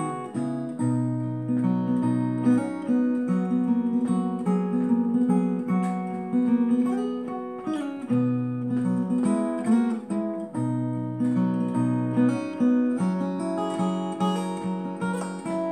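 Solo steel-string acoustic guitar, fingerpicked with a thumb pick, playing a song's instrumental introduction: held bass notes changing every second or so under a running line of higher plucked notes.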